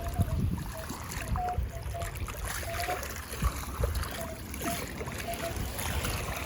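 Metal detector chirping a string of short, mid-pitched beeps of slightly varying pitch as its coil is swung over wet sand at the waterline. Under the beeps is a steady low rumble of wind and sloshing shallow water.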